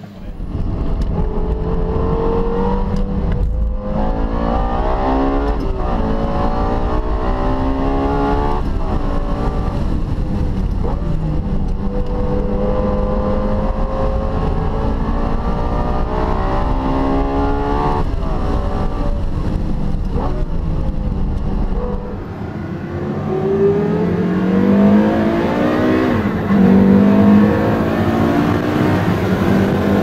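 Lexus LFA's V10 heard from inside the cabin on a race track, its note climbing and dropping repeatedly through gear changes for about twenty seconds. Then a Porsche Carrera GT's V10 is heard from inside the cabin accelerating hard, its pitch rising.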